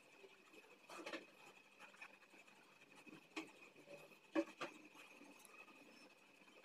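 Very faint marker pen on paper: soft scratches and a few light taps as the tip is lifted and set down, the clearest about four and a half seconds in. A faint steady high tone runs underneath.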